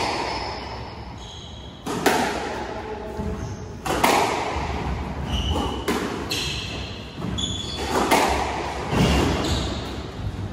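A squash ball being struck by rackets and smacking off the court walls during a rally: sharp, echoing hits every second or two. Short high squeaks, most likely shoes on the wooden court floor, fall in between.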